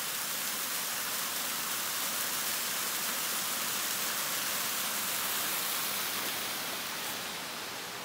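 Small woodland waterfall splashing into a plunge pool: a steady rush of falling water that fades a little near the end.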